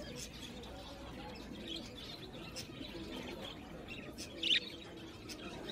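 Birds chirping in the background, with one louder short falling chirp about four and a half seconds in.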